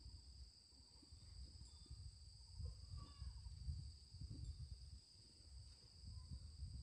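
Faint, steady high-pitched drone of insects, with an uneven low rumble underneath and a few faint chirps about three seconds in.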